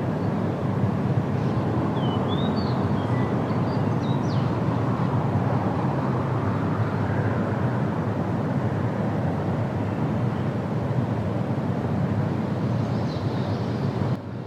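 Steady rushing roar of the Rhine Falls, a large waterfall, with a few faint high chirps about two to four seconds in. The roar drops away just before the end.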